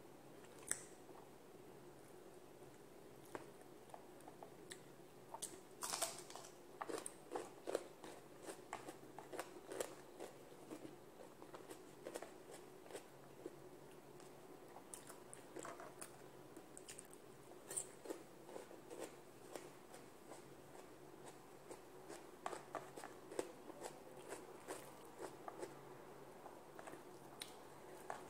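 Close-up chewing and eating by hand, with soft crunches, lip smacks and small irregular clicks, busiest about six to ten seconds in and again near the end.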